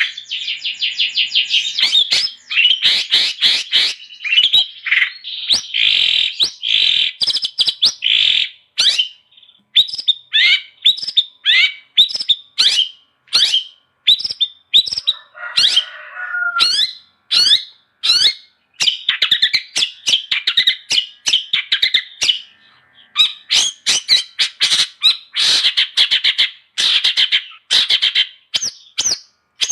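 Long-tailed shrike (cendet) singing: rapid chattering and trilled notes in quick phrases broken by short pauses, with a harsher, lower rasping call about sixteen seconds in.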